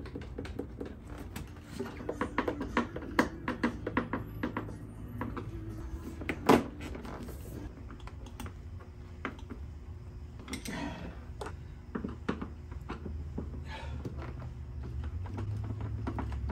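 Irregular small clicks, taps and knocks of hands and tools working on a Harley-Davidson Ultra Classic's batwing fairing as it is refitted, with one sharp knock about six and a half seconds in.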